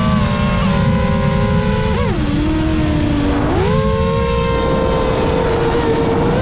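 A 7-inch FPV quadcopter's brushless motors and propellers whining steadily over a heavy low rumble. About two seconds in the pitch drops sharply as the throttle is cut, and about a second and a half later it climbs back as the throttle comes up again.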